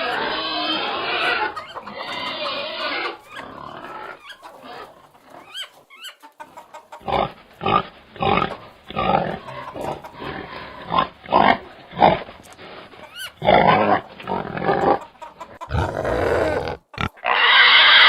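Pigs grunting: a dense stretch of calls at the start, then a run of short grunts about every half second to a second from about seven seconds in, and another loud call near the end.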